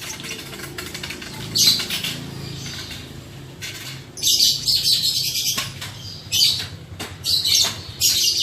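Lovebirds giving harsh, raspy chattering calls in several short bursts, the longest about four seconds in.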